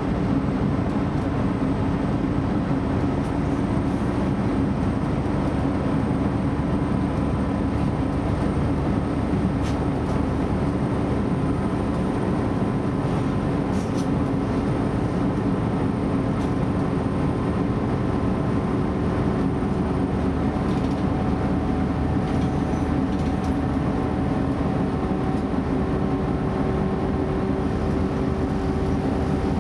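Onboard running sound of a DB class 633 PESA Link diesel multiple unit under way: a steady rumble of diesel engine and wheels on rail, with a few steady whining tones, one of which rises slightly past the middle.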